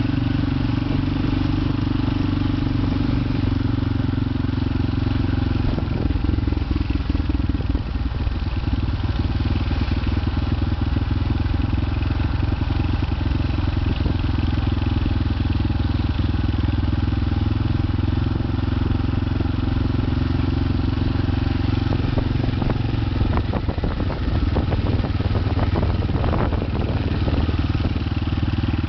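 Motorcycle engine running steadily at low road speed. Its note dips and rough, clattering ticks come through twice, around six to nine seconds in and again around twenty-three to twenty-six seconds.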